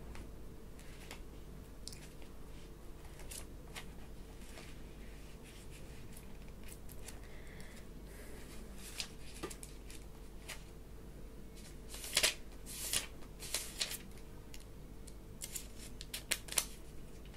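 Paper being handled close up: crisp rustling and crinkling with sharp little crackles, sparse at first and coming in a louder, denser cluster about two-thirds of the way through.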